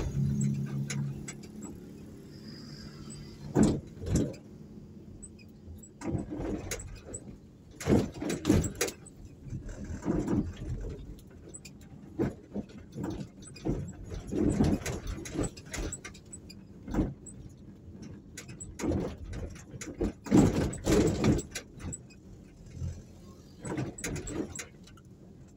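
Road vehicle driving along a rough, patched street, with irregular thumps every second or two.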